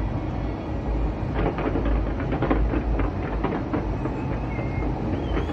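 Fireworks going off: a steady low rumble of booms, with a run of rapid crackling from about one and a half to four seconds in.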